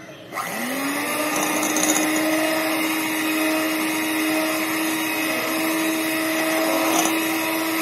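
Electric hand mixer switched on, its motor whine rising as it spins up and then running steady, the beaters whisking eggs with ground sugar and spices.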